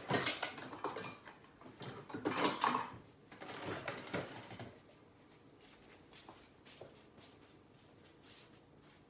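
Kitchen handling noises, clattering and rustling in a few bursts over the first few seconds as a strainer is fetched, then quiet room tone.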